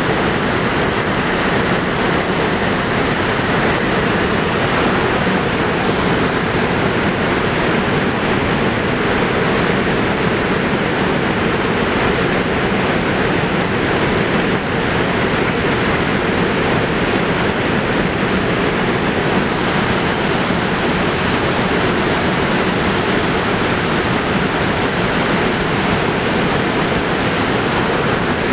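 A wide waterfall pouring over a ledge: a steady, loud rush of falling water.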